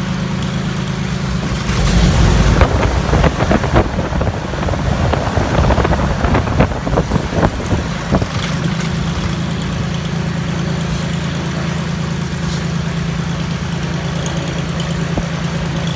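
Steady drone of a T-34 Mentor's piston engine. From about two seconds in until about eight seconds, it is overlaid by loud, uneven rushing and crackling.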